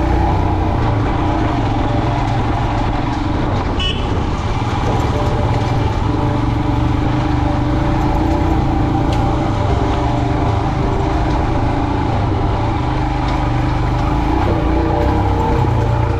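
Motorcycle engine running under way, its pitch rising and falling with the throttle, over a steady rush of road noise. A short high beep sounds about four seconds in.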